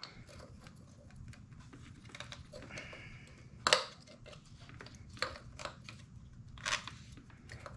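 Light handling clicks and rustles as paper base gaskets are laid down over the cylinder studs of a two-stroke engine, with a sharper click a little past the middle and a few more later.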